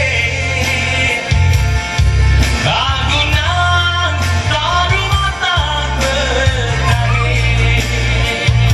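A male singer singing live into a handheld microphone through a PA sound system, over amplified backing music with a strong, pulsing bass line.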